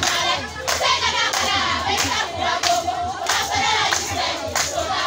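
A group of young dancers singing together while clapping their hands in a steady rhythm, about three claps every two seconds.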